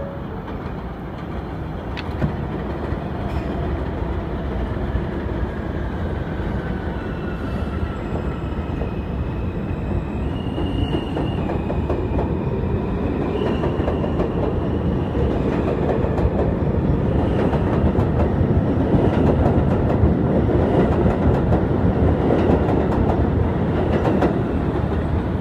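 New York City subway train arriving along an elevated platform: a steady wheel-on-rail rumble that grows louder as the cars come alongside, with clacking over the rail joints. A faint falling whine comes early, and high steady squeal-like tones sound from about ten seconds in.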